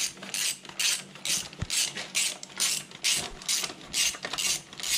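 Ratchet wrench clicking in short quick bursts, about two to three a second, as the handle is swung back and forth to undo a bolt on the tractor's rear axle housing.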